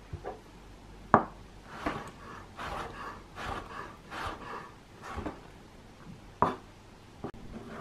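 A chef's knife chopping orange peel into small dice on a wooden cutting board: a run of cutting strokes about two a second, with a few sharper knocks of the blade on the board.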